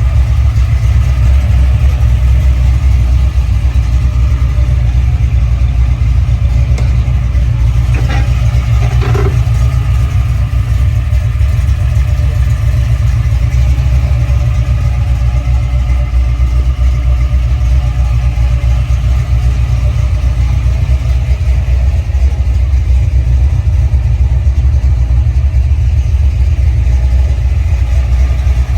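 A car engine running steadily with a loud, deep rumble, with a couple of brief knocks about eight and nine seconds in.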